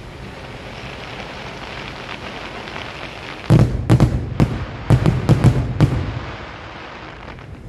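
Aerial fireworks shells bursting: after a steady rushing noise, a rapid volley of about eight sharp booms comes about halfway through and then fades.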